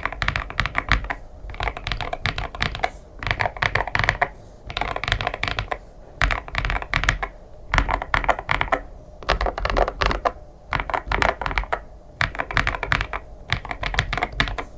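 Typing test on a Feker Vter K75 gasket-mounted mechanical keyboard, its switches damped by layers of foam: rapid runs of keystrokes about a second long, with short pauses between them.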